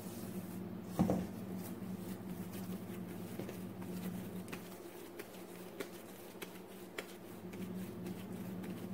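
Hands handling a soft ball of risen yeast dough on a floured counter: faint taps and rustles, with one dull thump about a second in. A steady low hum runs underneath.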